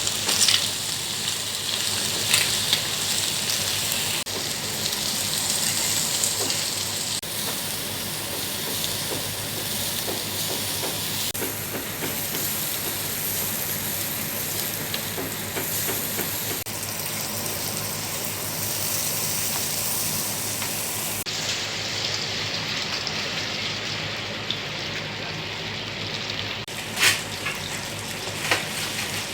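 Garlic shrimp sizzling in a pan: a steady frying hiss that changes abruptly several times, with a few sharp knocks near the start and near the end.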